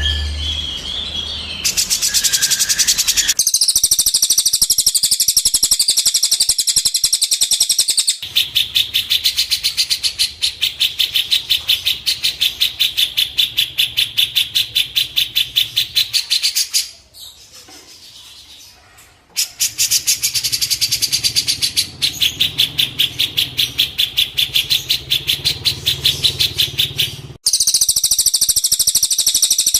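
Songbird training recording (masteran): a small songbird chirping in long, fast runs of repeated high notes, broken by short pauses where the recording is spliced.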